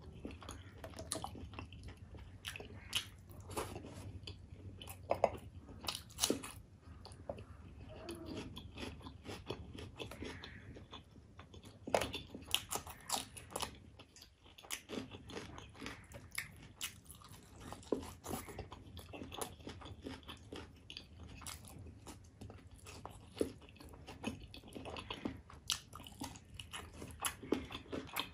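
A person chewing food close to the microphone, with many short, sharp clicks and mouth noises.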